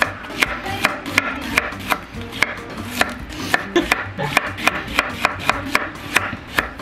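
Chef's knife slicing onions into rings on a wooden cutting board: a steady run of sharp knife taps on the board, about two to three a second.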